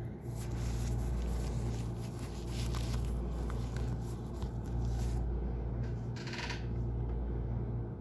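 Handling noise from a phone being gripped and repositioned: scattered rubbing and scraping on the microphone, with a few sharper scuffs about six seconds in, over a steady low room hum.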